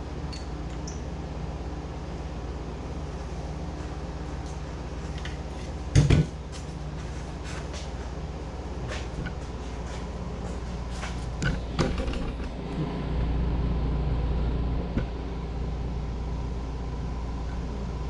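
Knocks and clatter of handling things at a workbench over a steady low hum: one loud sharp knock about six seconds in, a few more knocks around twelve seconds, and the hum growing louder for a couple of seconds after that.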